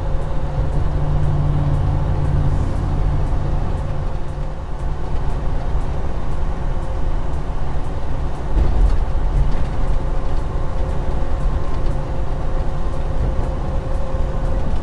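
Semi-truck driving at road speed, heard from inside the cab: a steady low engine drone and road rumble.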